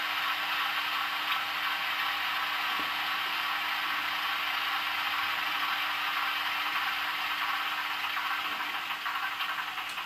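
Recorded British mainline diesel locomotive engine sound played by a DCC sound decoder through a small round speaker in an OO gauge model, running steadily with a clattering, tinny tone that eases off slightly near the end.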